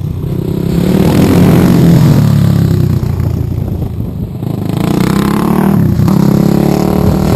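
Supermoto motorcycle engines revving as two bikes pass through a corner one after the other. The pitch climbs as each bike accelerates, with dips about four seconds in and again near six seconds.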